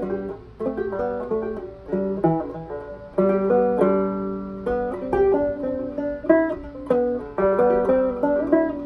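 Banjo with nylgut strings played clawhammer style: a steady run of plucked melody notes over a repeating drone string, with a longer ringing chord about three seconds in.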